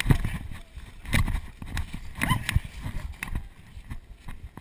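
Footsteps of several runners on a leaf-covered dirt trail, passing close by as quick, irregular footfalls.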